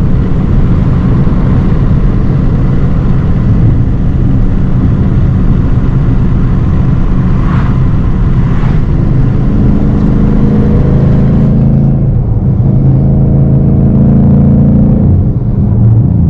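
A 2017 Mustang GT's 5.0-litre V8 running through an MBRP Race catback exhaust while driving, a loud, steady exhaust note. About eleven seconds in, the hiss drops away and the engine settles into a smoother, steady drone.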